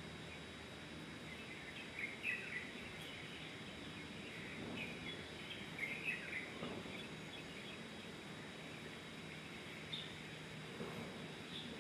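Steady background ambience with scattered short bird chirps, most of them around 2 and 6 seconds in.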